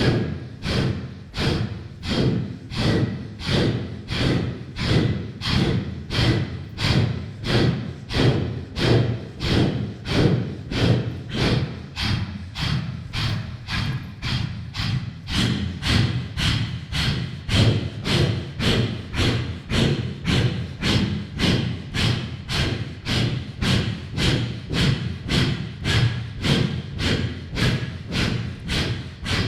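A steady beat of short, low thuds, about two a second, each with a brief ring, keeping an even pulse: a rhythmic percussive dance soundtrack.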